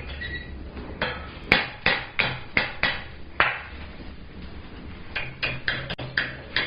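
Rounding hammer striking hot square steel bar held in a vise, bending the top of a forged hook: two runs of quick blows, about seven each, with a pause of under two seconds between them.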